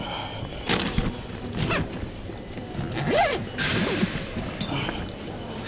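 Short rustling and zipping strokes of a bag being handled and zipped shut, with a few light thumps.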